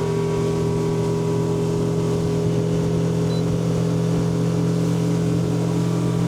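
Fishing boat's outboard motor running steadily at a constant speed, a loud even drone.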